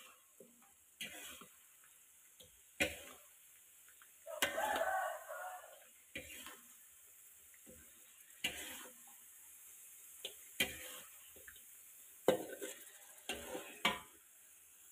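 Steel spatula scraping and stirring in a metal wok, in short irregular strokes every second or two with one longer scrape about a third of the way in. Fish in chilli sauce sizzles faintly in the wok between strokes.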